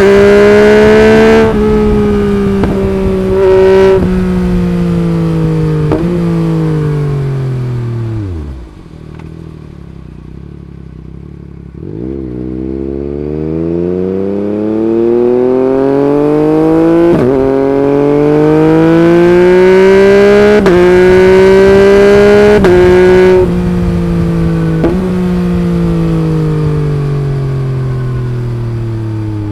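Yamaha MT-09's 890 cc inline three-cylinder engine through an Akrapovic Racing Line carbon exhaust, on the move. The engine winds down through gear changes to a low, quiet rumble about nine seconds in, then pulls hard for about ten seconds, its pitch rising with quick-shifted upshifts that each drop it briefly, before rolling off and winding down again.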